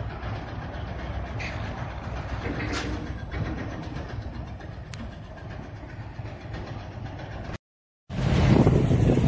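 Diesel-hauled passenger train rolling away along the track, a steady low rumble with a few faint clicks. About eight seconds in the sound cuts out for a moment, and loud wind noise on the microphone takes over.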